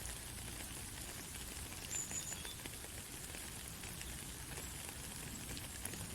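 Steady light rain: a soft hiss dotted with many small drop ticks.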